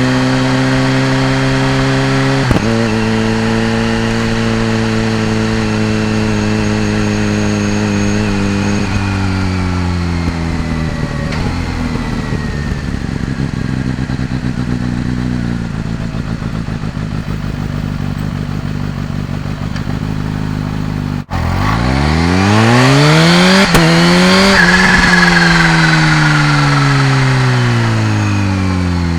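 Kawasaki Z H2's supercharged inline-four engine underway: holding steady revs, then easing off and slowing for a while. After a brief break about two-thirds in, it revs up hard through two quick gear changes, with a high supercharger whine over the exhaust, then rolls off the throttle and the revs fall away toward the end.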